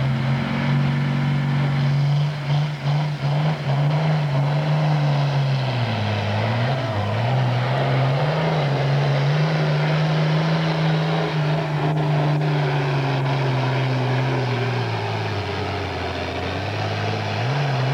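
Pro farm class pulling tractor's diesel engine running flat out under load as it drags the weight sled down the track. It holds a steady pitch, dips briefly about six seconds in, sags lower near the end, then picks up again.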